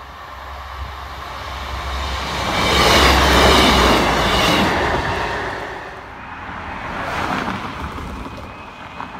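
A Class 158 diesel multiple unit passing over a level crossing. Diesel engine rumble and the noise of wheels on rail swell to their loudest about three to five seconds in, then fade by about six seconds.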